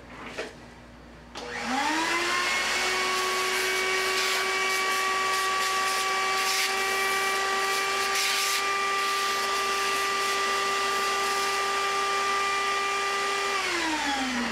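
A vacuum cleaner switches on about a second and a half in, its motor whine rising quickly to speed. It runs steadily while its hose nozzle sucks up brass drilling chips, then switches off near the end, the whine falling away.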